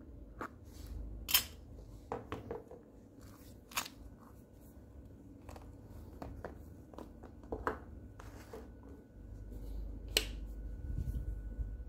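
Scattered clicks and knocks of a metal plier-type nail puller and a shoe being handled and set down on a wooden workbench. A sharp click about ten seconds in as the button on the puller's heating control box is pressed.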